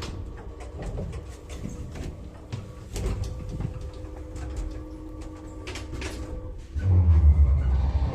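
KONE elevator hoist machine: a faint steady hum with scattered clicks and knocks, then about seven seconds in the winch motor starts up with a sudden loud low drone.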